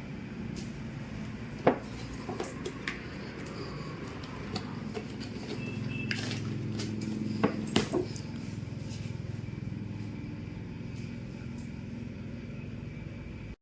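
A toy loader being handled and pushed: scattered sharp clicks and knocks, the loudest a click about two seconds in and a cluster of knocks about eight seconds in, over a steady low hum.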